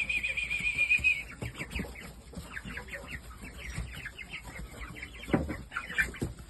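Young shamo chicks peeping: a high wavering trill for about the first second, then many short, high, falling peeps from several chicks overlapping.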